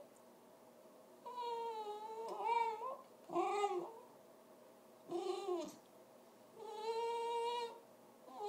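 Dog making a series of high-pitched whining vocal noises: four calls, a long held one about a second in, two short calls that rise and fall in pitch, and another long steady one near the end.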